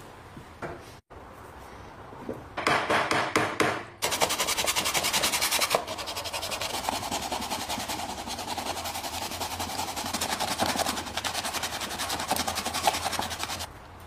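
Wooden box edge being smoothed by hand with rapid back-and-forth rubbing strokes of an abrasive tool. A few separate strokes come first, then a long fast even run that stops suddenly near the end.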